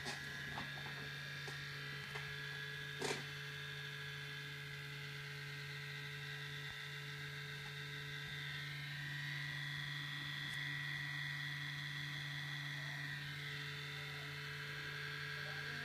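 MacBook Pro giving off a strange loud noise: a steady buzzing hum with thin, high whining tones above it, while the computer is doing nothing processor-intensive. Two short clicks in the first few seconds.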